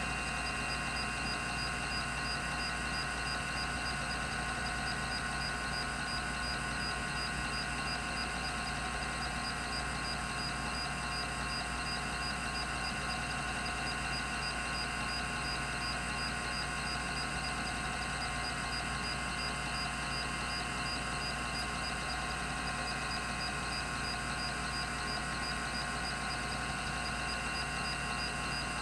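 Rodime RO352 3.5-inch hard drive, a 1983 10 MB ST-412 unit with two platters, spinning at its 3600 rpm running speed. It gives a steady whine of several high tones over a low hum, with no seek clicks.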